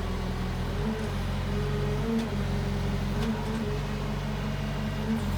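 Diesel engine of a Menzi Muck spider excavator running steadily, its pitch shifting slightly a few times.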